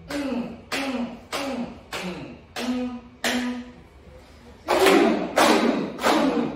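A group clapping hands in a steady rhythm, with a short voiced syllable on each clap. There are six claps about two-thirds of a second apart, a pause, then louder claps about twice a second.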